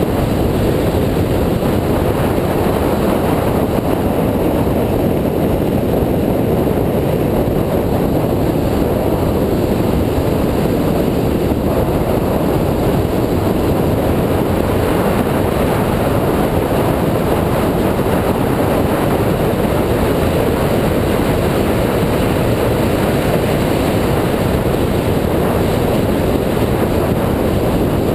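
2004 Mini Cooper S at speed on a track: steady, loud rushing wind and road noise on a microphone mounted outside the car, with no clear engine note standing out.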